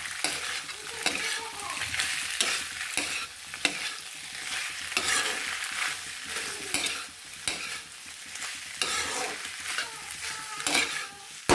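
Penne in tomato sauce sizzling in a wok on a gas flame while a metal spatula stirs and tosses it, with irregular scrapes and clinks of the spatula against the pan over a steady frying hiss.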